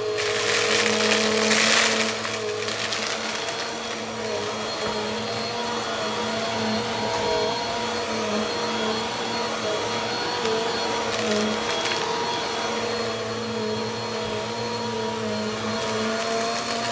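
Bissell vacuum cleaner running steadily, a motor whine with several held tones that waver slightly in pitch. A louder rush of air comes in the first two seconds, then settles.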